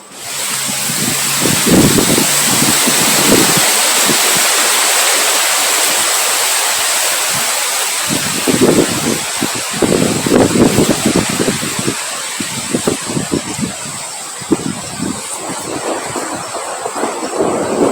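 Strong wind blowing hard, with irregular low rumbling gusts buffeting the microphone over a steady rushing hiss.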